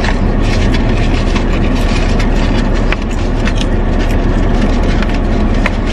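Car engine idling, heard from inside the cabin as a steady low rumble, with a few light clicks over it.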